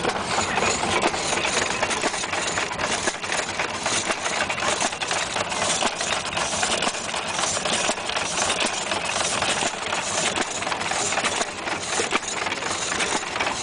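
Ottawa drag saw's hit-and-miss engine running steadily, with a busy stream of mechanical knocks and rattles.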